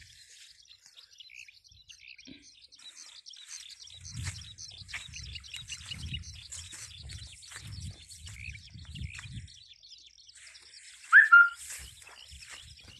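Small birds chirping and twittering throughout, with one louder short call, rising then held, near the end. Footsteps on sand thud about twice a second through the middle.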